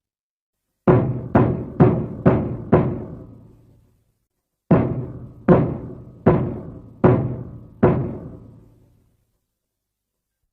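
Showa-era King Kong chest-beating sound effect: deep, drum-like thumps, each ringing briefly. There are two runs of five, the first quick, about two a second, and the second slower, about one every 0.8 seconds.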